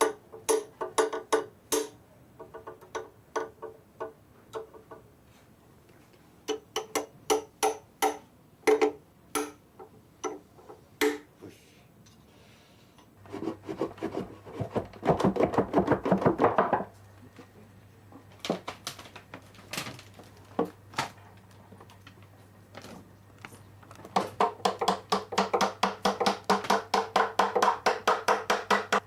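Hammer tapping on parts of a wooden mikoshi shrine during assembly, each tap sharp with a short ringing tone. The taps come in quick runs, with a dense fast run in the middle and another near the end.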